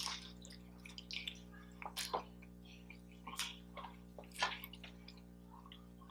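Wet chewing and mouth sounds of someone eating close to the microphone, in short soft bursts every second or so.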